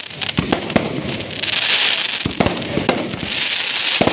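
Fireworks going off: a rapid string of sharp bangs and crackles over a hiss that swells twice.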